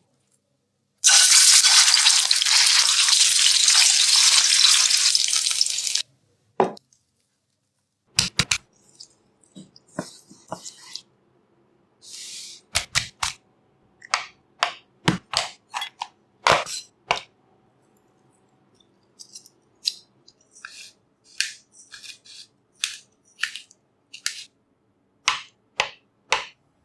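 Kitchen cooking sounds: about five seconds of loud, even hissing that starts and stops abruptly, then a long series of sharp clinks and knocks of utensils against pots and dishes.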